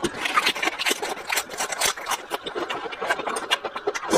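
Crisp crunching and chewing of a raw lettuce leaf, close to the microphone: a quick, uneven run of sharp crackles.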